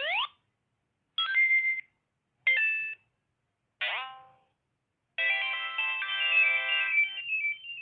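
Sonic the Hedgehog plush toy's built-in sound chip playing electronic Sonic game sound effects. It gives a rising swoop, three short chimes, then a longer tune of stepped notes lasting about two and a half seconds.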